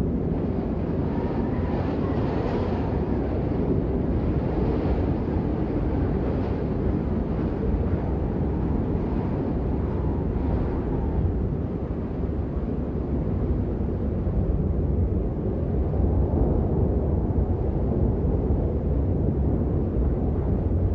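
Snowstorm wind blowing in gusts: a deep, steady rumble with hissing surges that come and go through the first half, a brief lull about halfway, then a rise again.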